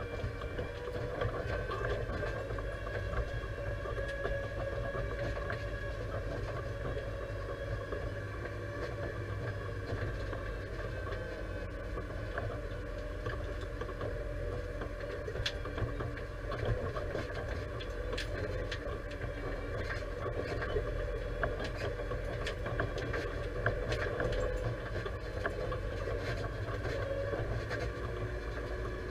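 Deutz-Fahr 5100G tractor's diesel engine running steadily, heard from inside the cab, with scattered small clicks and rattles.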